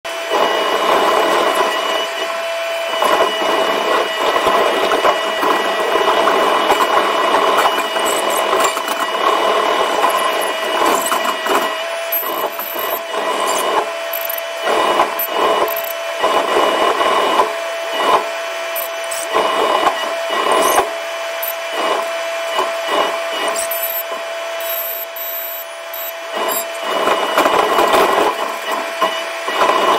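Continuous rough scraping and grinding of wooden railway sleepers being worked by an excavator's sleeper attachment, over a steady mechanical whine.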